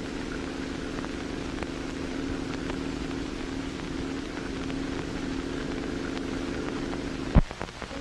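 Motor of a small radio-controlled drone boat running steadily as it speeds across the water, a constant engine hum over spray and film hiss. A single sharp click near the end.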